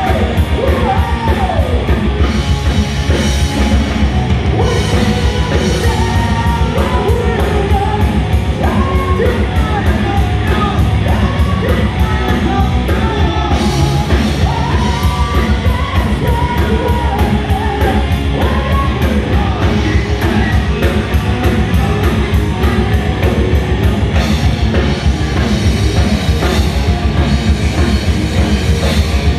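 A heavy metal band playing live and loud: electric guitars, bass guitar and a driving drum kit under a male lead singer's vocals.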